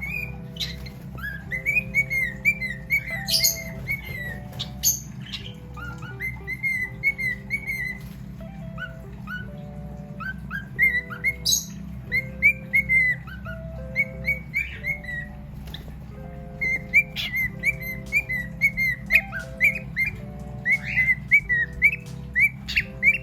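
Cockatiel whistling phrases of short notes that rise and fall, in runs broken by brief pauses, over background music of steady held tones. A few sharp chirps cut in.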